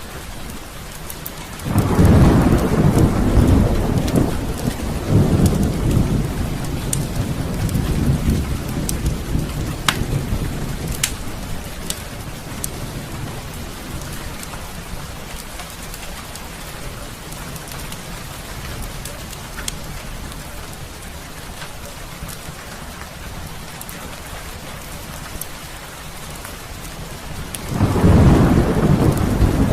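Heavy rain falling steadily while thunder rolls: a deep rumble swells about two seconds in and fades away slowly, and another roll begins near the end. A few sharp crackles from a wood fire in a fireplace sound over the rain.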